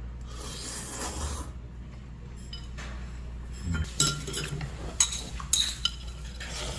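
Metal chopsticks and spoons clinking against bowls during a meal of noodle soup, with noodles being slurped near the start and a few sharp clinks later on.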